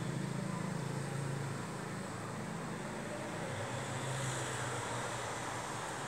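Steady low background rumble, like distant road traffic, swelling briefly near the start and again about four seconds in.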